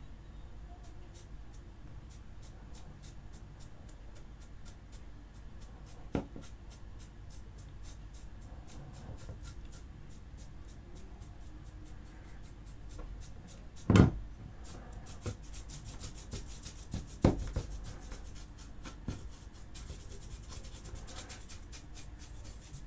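Stiff flat paintbrush dry-brushing the sculpted fur of a plastic action-figure arm: the bristles scratch and rub in quick repeated strokes, with a few knocks, the loudest about halfway through.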